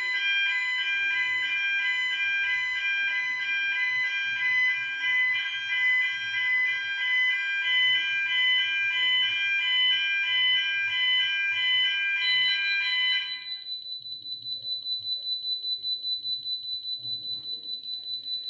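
Building fire alarm sounder test-activated, a loud fast-pulsing electronic alarm of several high tones that stops about 13 seconds in. A quieter single high-pitched beep starts just before it stops and repeats about two to three times a second to the end.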